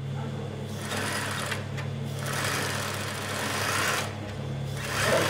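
Sewing machine running, a steady motor hum under the rapid stitching clatter, which thins out briefly twice.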